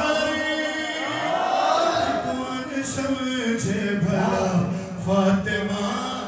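A man chanting an Urdu devotional recitation in praise of Fatima into a handheld microphone, drawing out long held notes that step lower in pitch toward the end.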